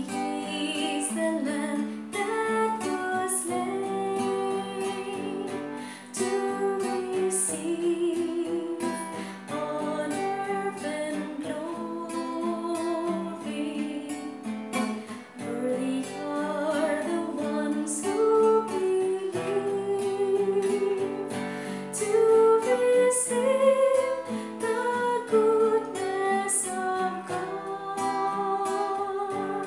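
A woman singing a worship song, accompanying herself on a strummed acoustic guitar.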